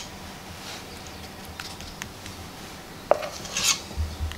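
Metal spoon clinking and scraping against a stainless steel mixing bowl while thick cupcake batter is scooped out, with a few soft taps, one sharp clink about three seconds in, and a short scrape just after it.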